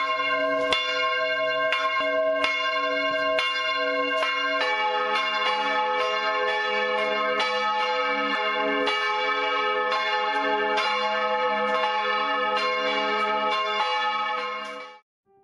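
Church bells ringing in a full peal, a strike about every second over layered ringing tones, ringing in the start of the service. A lower bell joins about five seconds in. The ringing cuts off suddenly near the end.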